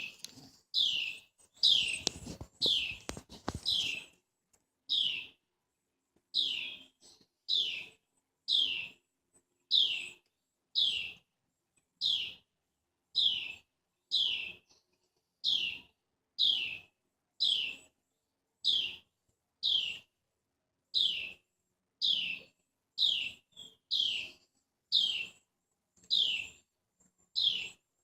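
A bird under a deck repeating one short, sharp, downslurred chirp about once a second, steady and insistent.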